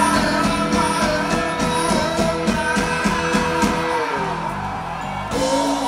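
A live pop band playing: drum kit keeping a steady beat under electric guitar, with female singers' voices. The beat thins out about four seconds in.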